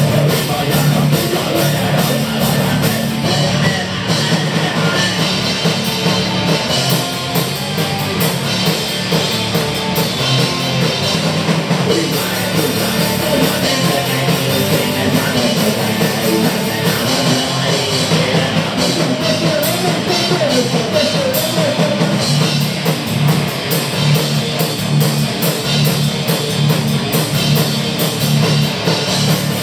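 A heavy rock band playing live: distorted electric guitars through amplifiers, bass guitar and a drum kit, with a man singing into a microphone.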